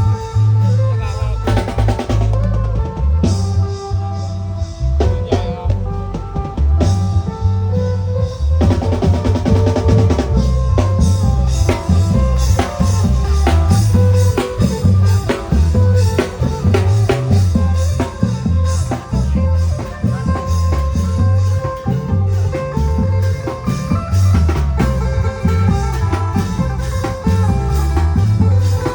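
Thai long-drum (klong yao) band playing a steady pounding drum rhythm with percussion and a melody over it.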